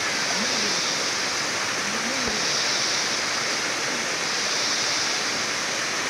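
Rushing water from a jungle stream or falls, a steady, even hiss that does not change.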